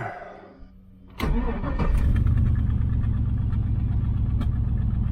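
Swapped-in truck V8 in a 1968 Chevrolet Nomad catches after a brief crank about a second in and settles straight into a steady idle. The idle carries the left-bank misfire the owner has been chasing.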